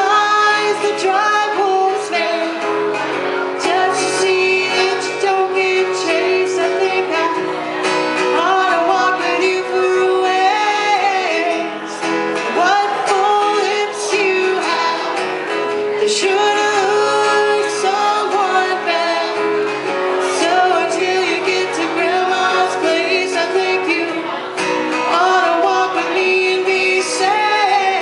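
Live acoustic duo: a woman singing lead over an acoustic guitar.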